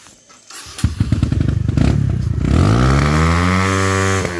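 Motorcycle engine close by, running with a lumpy beat from about a second in, then revving up to a steady higher pitch and easing off near the end.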